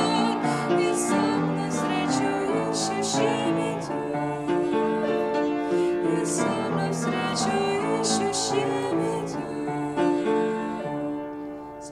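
Upright piano accompanying a young woman singing a slow Christian song in Russian; the music fades away near the end.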